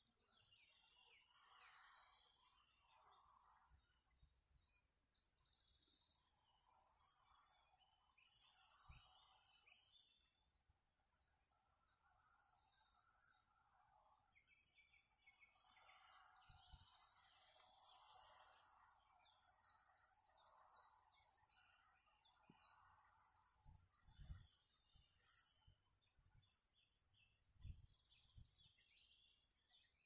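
Faint songbirds singing: high trilling phrases repeated every few seconds, with lower warbling notes mixed in, and a few soft low thumps.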